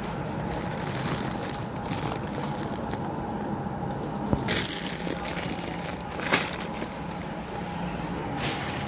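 Plastic packaging of a bag of cupcakes crinkling as it is picked up and handled, with short crinkling bursts about four and a half and six seconds in, the second the loudest. Under it runs a steady supermarket background hum.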